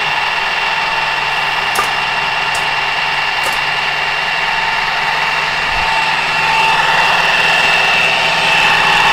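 Food processor motor running steadily with a constant whine, its blade pureeing a thick hummus mixture of chickpeas, tahini and lemon juice. It gets slightly louder about six seconds in.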